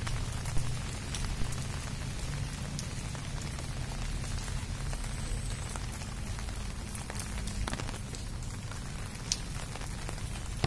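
Steady patter of rain with scattered sharper drops, over a constant low rumble.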